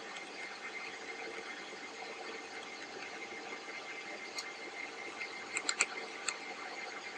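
A few small sharp clicks of handling the laptop's case, one about four seconds in and a quick cluster of four about a second later, over a steady background hiss.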